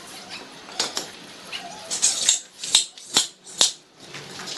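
Metal parts and tools clinking and knocking, a handful of sharp clicks with the loudest ones bunched in the second half.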